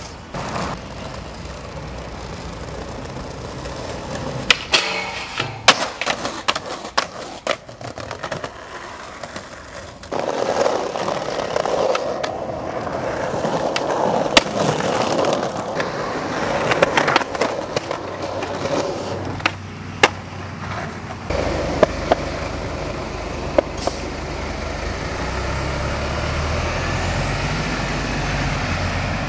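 Skateboard wheels rolling on pavement, with sharp clacks from tail pops and landings scattered through. From about two-thirds of the way in, a low steady rumble of passing traffic runs underneath.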